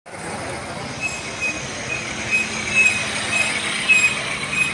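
Street traffic running steadily, with a series of short high-pitched squeaks repeating about twice a second from about a second in.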